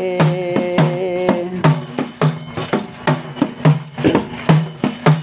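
Hand-held tambourine with a drum head struck by hand in a steady beat of about two strokes a second, each stroke a low thump under ringing jingles. A man's sung note is held over the first second and a half, then the tambourine plays on alone.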